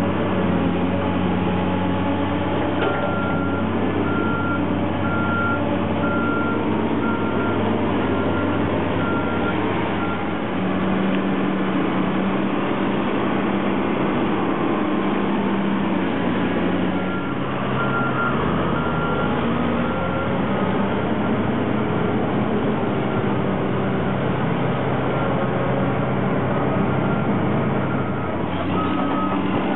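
Engine of heavy construction machinery at a street excavation running steadily, with a vehicle's back-up alarm beeping at an even pace. The beeping runs for several seconds from a few seconds in, stops, and starts again past the middle.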